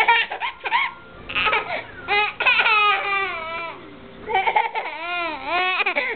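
A person laughing uncontrollably in high-pitched fits, the pitch swooping up and down, with several bursts separated by short breaths.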